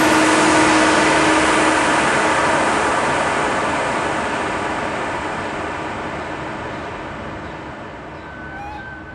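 Steady rushing road noise of a vehicle at speed, with a few steady hum tones in it, fading out slowly.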